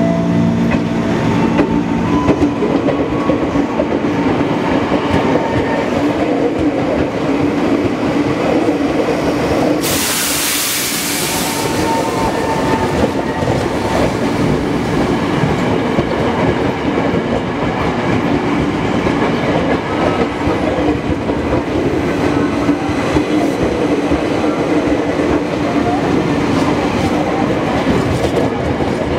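Ex-Tokyo Metro 05 series electric commuter train running past close by, its wheels rumbling steadily on the rails. A loud hiss of air rises about ten seconds in and lasts about two seconds.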